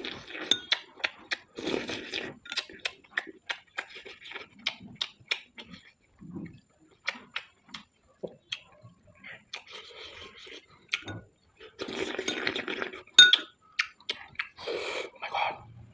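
Spoon clinking and scraping against a plate of fried rice, many short sharp clicks, with a few longer eating noises in between.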